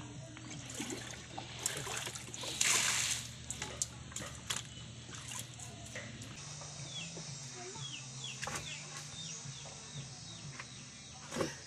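Muddy water sloshing and splashing as a plastic bucket is dipped into a flooded pit and emptied, with one loud splash about three seconds in. Later come a run of short falling chicken peeps and a couple of sharp knocks as wooden planks are laid across the pit.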